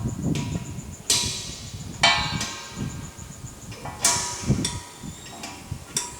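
Metal parts of a gas forge's burner and fittings knocking together as they are handled. There are several clanks, the three loudest each ringing briefly, with rustling handling noise between them.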